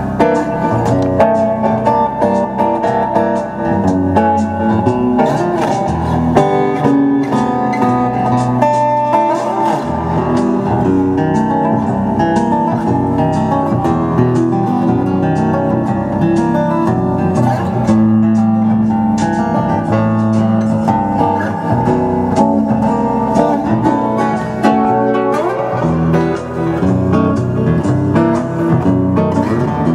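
Acoustic guitar playing a continuous run of plucked notes and chords.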